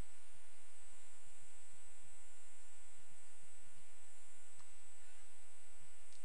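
Steady electrical hum with several fixed tones.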